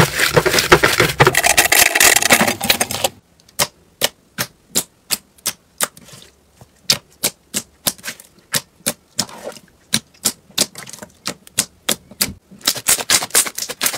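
Slime being handled for ASMR: a dense, loud crackling crunch for about three seconds, then a run of sharp separate clicks and pops, about three to four a second, with a quicker cluster near the end.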